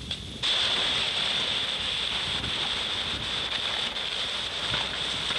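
Steady rush of wind and sea water, cutting in abruptly about half a second in.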